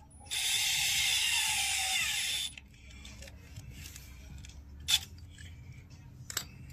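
Power drill driving a screw into a sprayer pump housing, running steadily for about two seconds with its whine sagging slightly in pitch before it stops. A few sharp clicks follow later.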